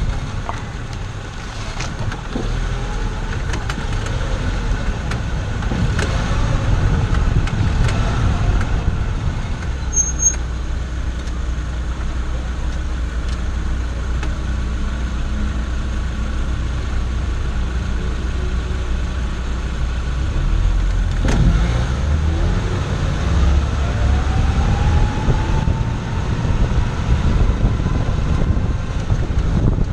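Chevrolet Zafira being driven: steady engine and road rumble with a few short knocks. Over the last several seconds an engine whine rises in pitch.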